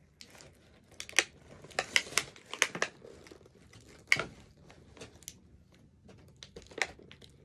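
Plastic doll packaging crinkling and rustling as a doll is worked free of it by hand, with scattered short sharp crackles and clicks.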